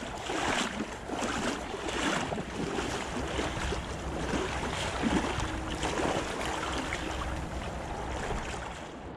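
Footsteps of an angler in waders splashing through shallow water at the river's edge, a step about every half second, over the steady rush of a running river and wind on the microphone.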